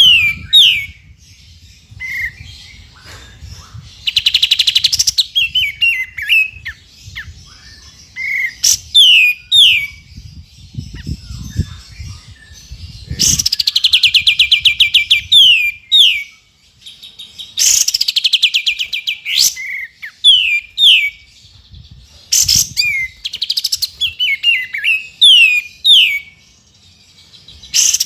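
Kapas tembak (olive-winged bulbul) singing in repeated phrases a few seconds apart. Each phrase is a fast chattering trill followed by several short, falling whistled notes.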